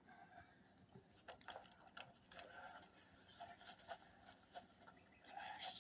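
Near silence, with a few faint clicks and soft rustles scattered through it.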